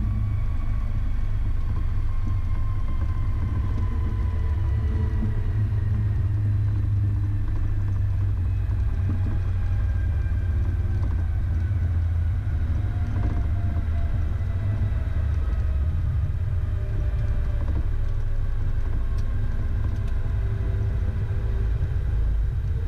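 Cockpit noise of a Beechcraft Premier I business jet on its landing rollout: a steady low rumble from the wheels on the runway under the whine of its turbofan engines, which slowly falls in pitch as they wind down.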